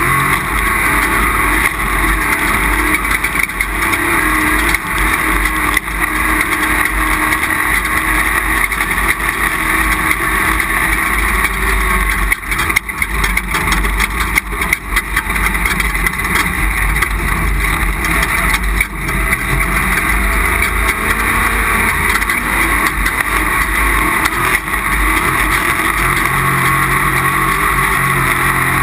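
Off-road race vehicle running at speed: its engine runs under load, shifting in pitch, beneath a steady rushing noise. A run of knocks comes about 12 to 15 seconds in.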